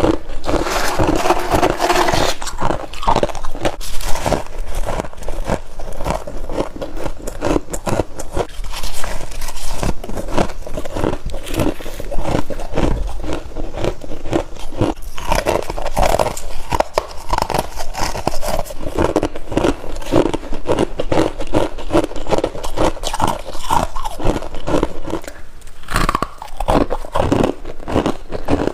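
Freezer frost being bitten and chewed close up: a steady, dense crackling crunch without a break.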